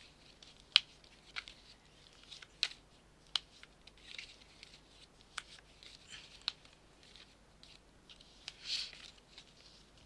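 Tarot cards being gathered back into the deck and shuffled by hand: scattered light clicks and snaps of card on card, with a few brief rustling swishes.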